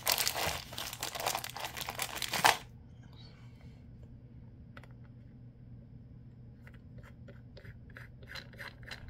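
Close handling noise: a loud rustling, tearing-like sound for about two and a half seconds, then quiet with light clicks and taps near the end.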